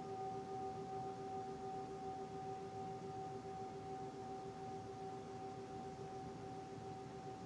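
Singing bowl ringing on in a long sustained tone, a low note with fainter higher overtones, slowly fading, the low note wavering gently.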